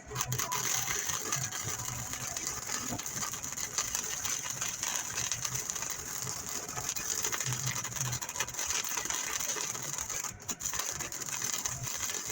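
Steady rapid crackling, rattling noise of metal shop work, breaking off briefly about ten seconds in and then starting again.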